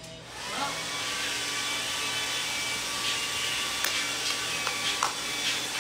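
Hair dryer switched on, its motor pitch rising as it spins up about half a second in, then running steadily with a blowing rush.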